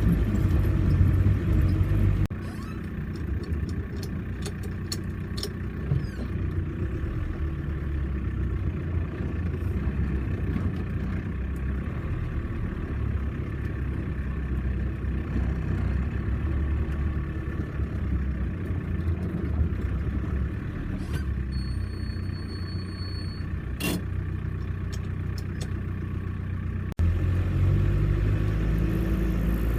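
Off-road 4x4 vehicle engine running under load, a steady low drone. The level drops abruptly about two seconds in and jumps back up near the end.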